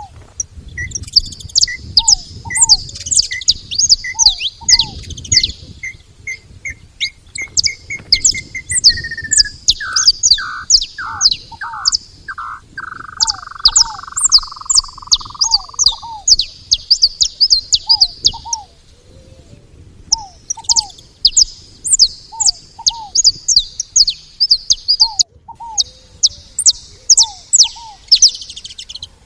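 A flock of saffron finches chattering at a feeding spot: dense, rapid high chirps that pause briefly partway through. Mixed in is another bird's series of notes that speeds up and slides lower until the notes run together, plus recurring short, lower downslurred notes.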